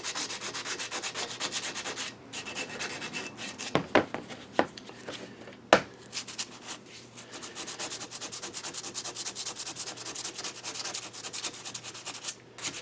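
Hand sanding a lathe part with fast back-and-forth strokes, about five or six a second, pausing briefly near the start. A few sharp knocks come in the middle and are the loudest sounds.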